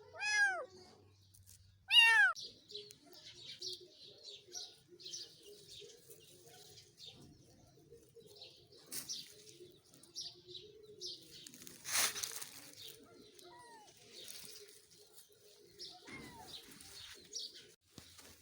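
Kitten meowing: two loud, falling-pitch mews near the start, then a few faint ones later on. Small birds chirp faintly in the background throughout, and there is one brief scratchy noise about midway.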